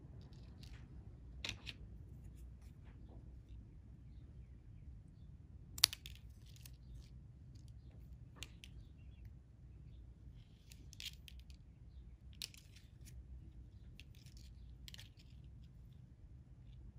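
Fishing line and a hook being handled at close range while a knot is tied and pulled tight: scattered small clicks and rustles over a low steady hum, with one sharp click about six seconds in.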